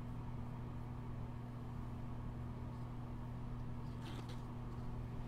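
Steady low hum from a machine or appliance in the room, with a brief faint scratch about four seconds in.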